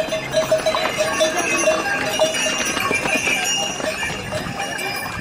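Bells on a passing string of pack ponies ringing and jingling over and over, with hooves clopping on the wet stony path.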